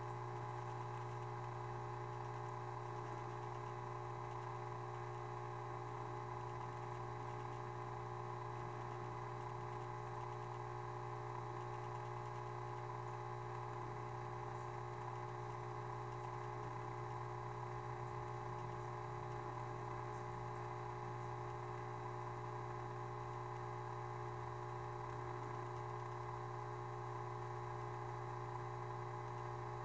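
Steady low electrical hum of running aquarium equipment, unchanging throughout, with a few fainter steady tones above it.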